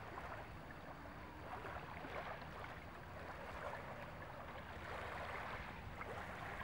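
Calm sea water lapping and trickling gently at the shoreline: a steady fizz of small ripples with many tiny splashes and no single loud event.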